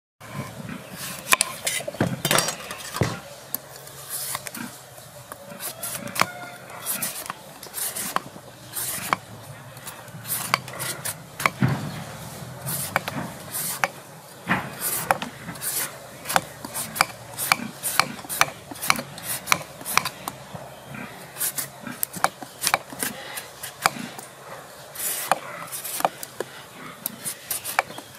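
Hand vegetable peeler scraping the skin off a green papaya in many short strokes at an uneven pace.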